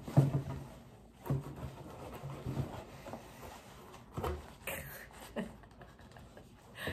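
Large leather gloves being pulled onto the hands and handled, with short rustles and soft bumps, mixed with brief soft laughter.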